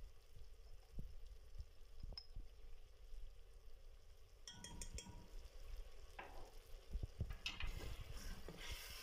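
A metal spoon and ladle stirring and scraping tomato masala frying in an aluminium pressure cooker, with a faint sizzle. The stirring and scraping start about halfway through; before that there are only a few light clicks.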